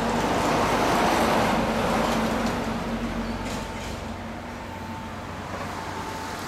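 A road vehicle passing by, its noise swelling to a peak about a second in and then fading away.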